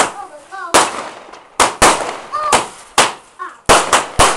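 Multi-shot firework firing a rapid run of sharp bangs, about nine in four seconds at uneven spacing, each fading off briefly.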